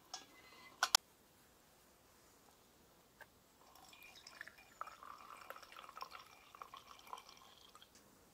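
Two sharp metal clinks as the Trangia spirit burner is opened, the louder about a second in. Then, from about four seconds in, a thin stream of alcohol fuel trickles for about four seconds from a fuel bottle's safety-valve spout into the burner.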